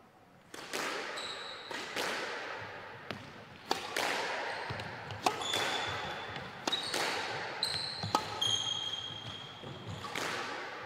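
Squash rally: the ball is struck by rackets and smacks off the court walls in a string of sharp, echoing hits about a second apart. Short high squeaks of players' shoes on the wooden floor come between the hits.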